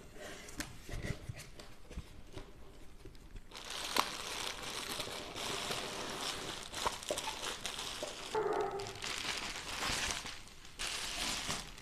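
Cardboard box flaps handled with scattered soft clicks, then plastic bubble wrap crinkling and crackling loudly as a wrapped package is pulled out of the box, starting with a sharp crackle about four seconds in.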